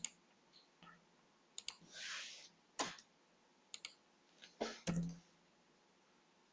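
Scattered, quiet computer mouse and keyboard clicks, singly and in quick pairs, as text is edited in a document, with a brief soft hiss about two seconds in.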